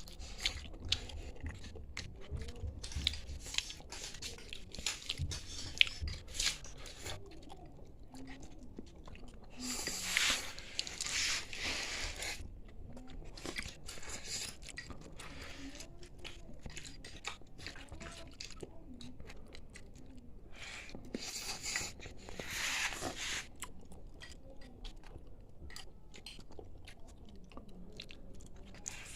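Close-miked chewing of black rice, with many small wet clicks and smacks of the mouth. There are two longer, louder noisy stretches, one about a third of the way in and one about three-quarters of the way through.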